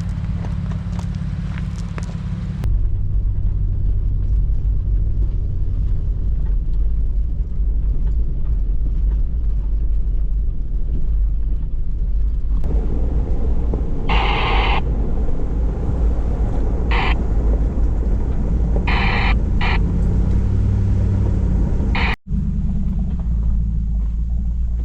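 Steady low rumble of a 2004 Lexus GX470's V8 and its tyres while driving on a mountain trail, with a few short, higher-pitched sounds over it in the second half.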